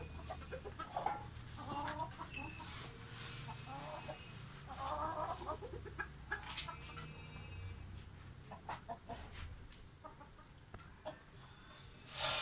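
Chickens clucking in a coop, in short bursts, with a few sharp clicks and knocks from the wire-mesh coop door being handled.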